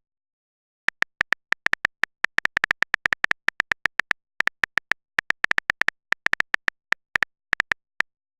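Smartphone on-screen keyboard making its short tap click for each key, in quick, irregular runs of several taps a second with brief pauses: a message being typed.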